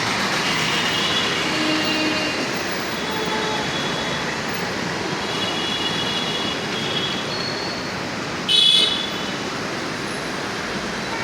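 Steady city road-traffic noise, with a brief loud high-pitched sound about three quarters of the way through.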